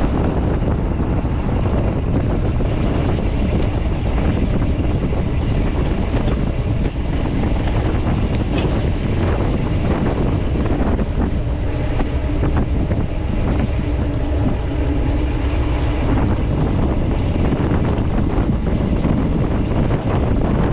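Steady wind rushing over the microphone of a camera on a road bike riding at about 32 km/h.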